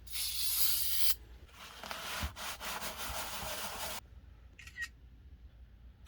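Brush scrubbing and rubbing against the inside surfaces of an HVAC air handler, a scratchy rasping hiss in uneven strokes that cuts off abruptly about four seconds in.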